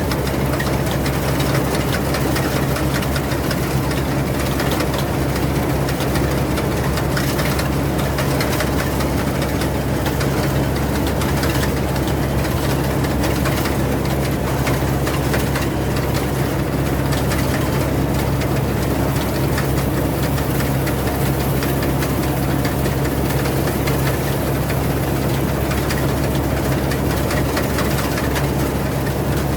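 Rice combine harvester's engine running steadily, a constant drone that holds one speed throughout.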